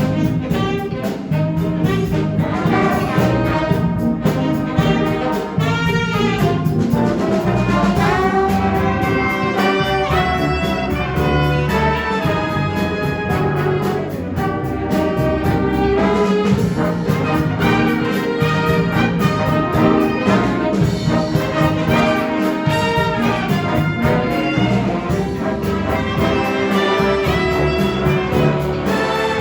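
Junior high school jazz band playing a brass-led chart, with trumpets, trombones and saxophones over bass and keyboard.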